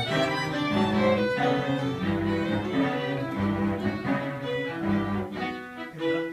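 String quartet (two violins, viola and cello) playing a passage of a new composition. Bowed notes held briefly and changing chords, with the cello's low notes under the violins.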